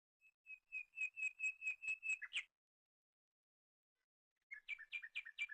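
A bird whistling a rapid run of about ten clear notes that speed up and stop about two and a half seconds in, then after a pause a shorter run of lower notes near the end.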